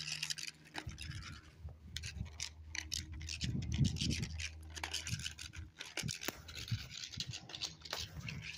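Irregular scratchy rubbing and crackling close to a handheld phone's microphone.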